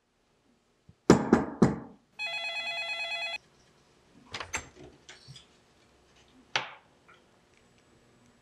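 Antique magneto telephone's twin nickel gongs ringing for about a second. Just before, there are three loud knocks, and after come a few lighter clicks and knocks of the wooden case being handled.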